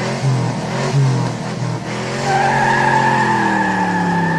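A car engine revving with tyres squealing, a long steady squeal setting in about two seconds in.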